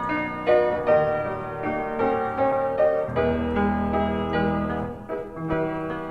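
Piano playing a slow piece, notes struck about twice a second, with fuller low notes underneath from about three seconds in.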